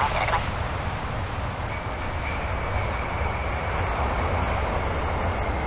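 Four-engine Boeing 747-400 airliner rolling out on the runway just after touchdown: a steady jet-engine rumble and roar, with a faint high whine joining about two seconds in.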